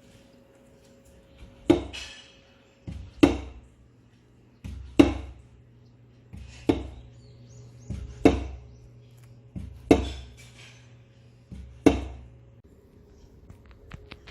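Repeated sharp wooden knocks, seven strong ones about every second and a half, each preceded by a lighter tap, with a faint steady hum underneath.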